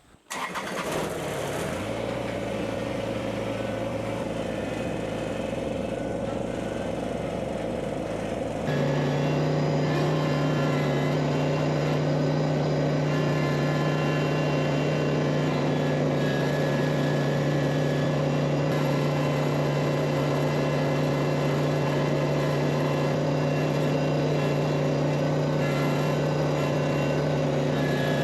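Compact tractor's diesel engine running steadily. About nine seconds in, the throttle is raised: the engine note steps up in pitch and gets louder, then holds steady at the higher speed.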